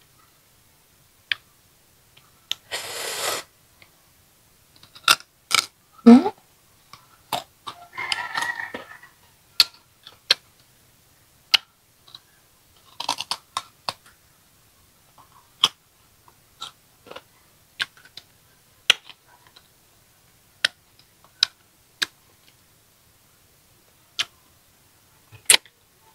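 Close-miked crunching and chewing of crisp young green ambarella fruit coated in chili salt: sharp, crisp crunches at irregular intervals throughout, with a couple of longer hissy noises about three seconds in and again about eight seconds in.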